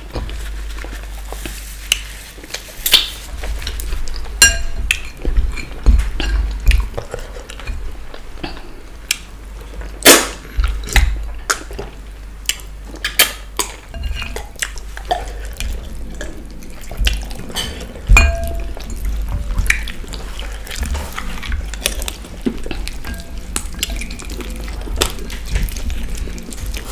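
Close-miked eating sounds: irregular wet clicks, smacks and clinks of chewing and of fingers working soup and meat off bones against ceramic plates.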